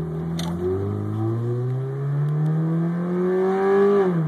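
Subaru Legacy engine accelerating hard under load with its air intake removed, so it draws air straight in past the bare throttle plate: a throaty intake sound rising steadily in pitch for about four seconds. Near the end the revs drop suddenly and settle at a steady lower pitch.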